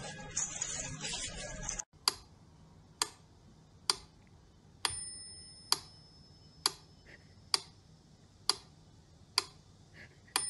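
A clock-like ticking: sharp ticks a little under a second apart, each fading quickly. Two of them ring on with a clear high chime, about five seconds in and again near the end. For the first two seconds there is a steady noisy buzz, which cuts off abruptly before the ticks begin.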